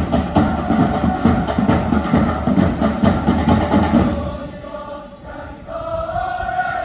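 Football supporters' chant: a crowd singing in unison over a steady drumbeat. About four seconds in the drums stop and the crowd carries on singing alone.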